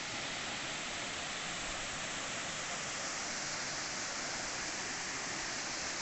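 Waterfall pouring over a smooth rock ledge into a pool: a steady rushing hiss of falling water.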